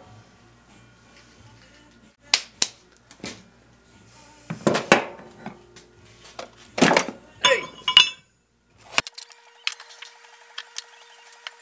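Steel machine parts, a bearing ring, a bar and a plate, clinking and knocking against each other and the workbench as they are handled and set down: a run of sharp metal knocks, one cluster near the middle ringing briefly. Near the end a faint steady hum with small ticks.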